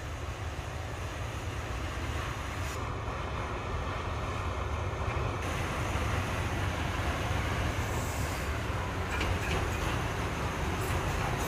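Alsthom diesel-electric locomotive running with a steady low engine rumble that grows louder as the train draws near.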